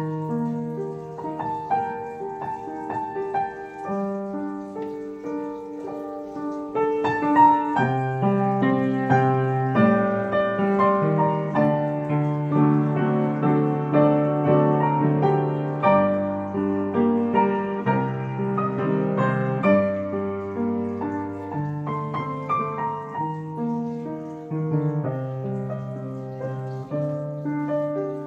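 Yamaha UX50 upright piano being played: a melody over sustained bass notes and chords, growing fuller and louder from about eight seconds in.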